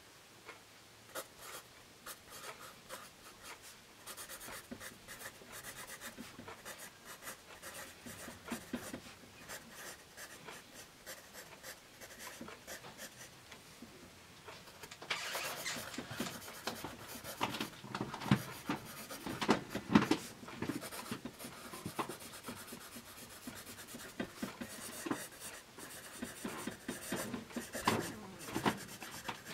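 Bostitch #2/HB wood-cased graphite pencil scratching across paper, first in faint short strokes printing block capitals, then, from about halfway, louder and busier strokes writing in cursive. The lead is a soft, dark #2.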